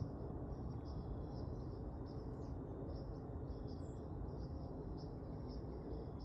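Insects, crickets or katydids, chirping in a steady high pulse about twice a second over a steady low rumble.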